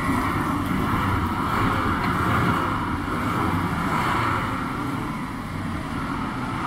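Mitsubishi L200 pickup's engine running steadily under load as the truck tries to drive out of a deep mud rut.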